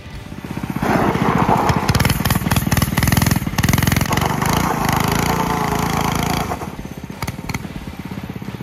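Coleman CT100U mini bike's small single-cylinder four-stroke engine running loud for about five seconds. About six and a half seconds in, it drops to a quieter, pulsing run.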